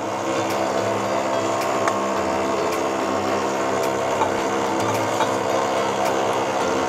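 Electric stand mixer's motor running steadily, its whisk beating cake batter in a stainless steel bowl, with a few faint light clicks.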